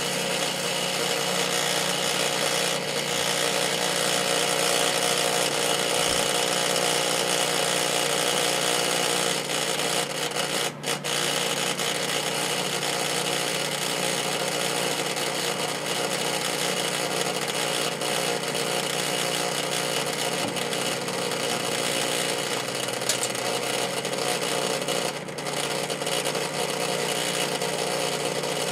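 Rival microwave oven running with a steady hum and fan noise while heating a bottle of The Works toilet bowl cleaner; the sound dips briefly twice.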